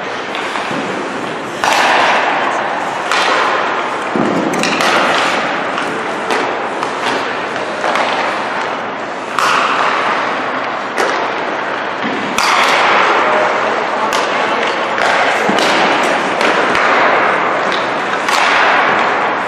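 Ice-hockey pucks and sticks knocking and thudding, a sharp hit every second or so, each ringing out through a large ice rink, over the scrape of skates on the ice.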